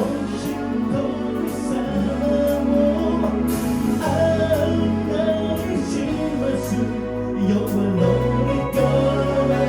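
A live band playing a song with a sung lead vocal, held bass notes that change every couple of seconds, and drums with steady hi-hat strokes, heard as a sound-check run-through.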